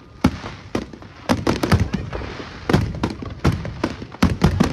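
Fireworks going off: an irregular run of sharp bangs and pops, about a dozen in a few seconds, coming thickest near the end.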